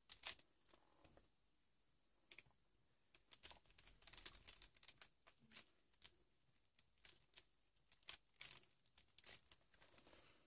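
Faint, scattered rustles and crackles of paper as hands press and smooth collage pieces down onto an art journal page.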